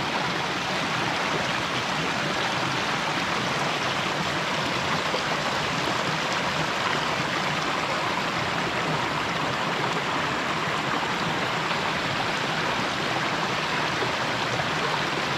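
Small mountain creek flowing over rocks: a steady, even rush of water, heard from close by in the middle of the stream.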